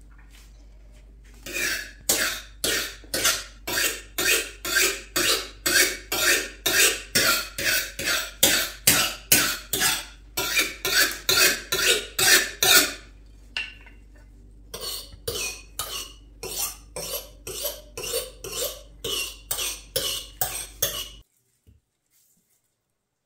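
A kitchen knife being sharpened: a steady run of quick scraping strokes, about two or three a second, with a short pause partway through. The sound cuts off suddenly near the end.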